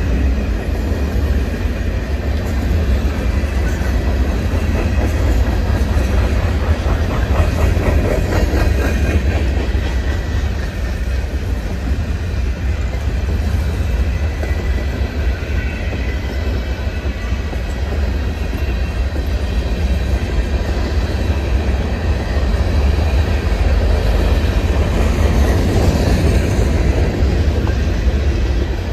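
Empty covered grain hopper cars of a freight train rolling past at close range: a steady rumble, with the wheels clacking over rail joints.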